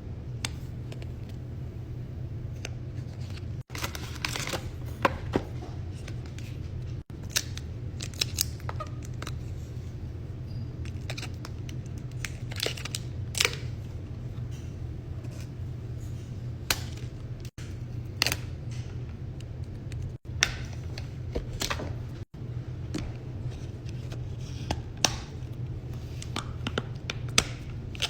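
Box and packaging of an iPhone 12 Pro Max being handled and opened: scattered clicks, taps and short crinkling and tearing noises over a steady low hum. The sound cuts out briefly several times.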